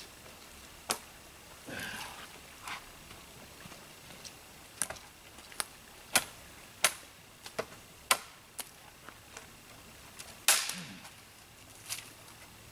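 Sharp snaps and cracks of dry twigs and small branches as a cut branch is handled and pulled free of a brush pile: about a dozen separate snaps at uneven intervals, the loudest about ten and a half seconds in.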